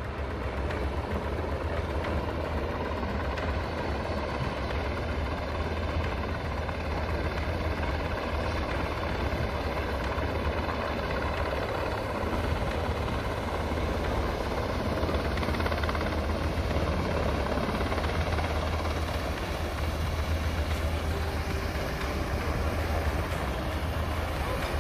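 Military helicopters flying low, a steady rotor and engine drone with a strong deep rumble.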